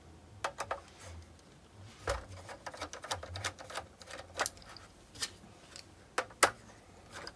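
A PH1 Phillips screwdriver backing screws out of the metal lid of a Supermicro SuperServer SYS-E300-9D chassis: irregular light clicks and ticks of the bit and screws against the steel case. A few sharper clicks stand out, the loudest near the end.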